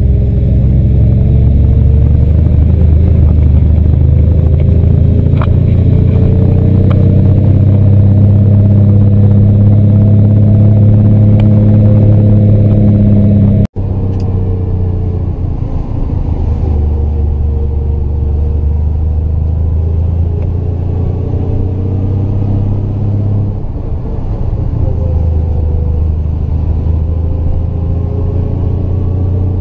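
Triumph GT6 Mk2's two-litre straight-six running under load on a climb, its note rising and falling as the revs change. About halfway through the sound cuts out for an instant and comes back a little quieter.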